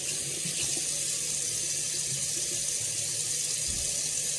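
Bathroom sink faucet running steadily into the basin while hands scoop water onto a face.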